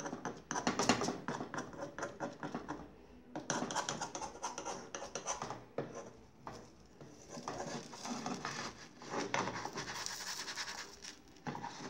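Metal spoon scraping around the edge of a crepioca in a nonstick frying pan, loosening it from the pan. Quick repeated strokes in three spells, with short pauses about three and six seconds in.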